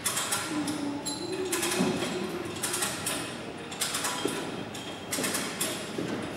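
Strv 103C's collapsible flotation screen being folded down by hand: the pleated screen and its fittings creak and rattle in irregular bursts about once a second, with a drawn-out creak in the first couple of seconds.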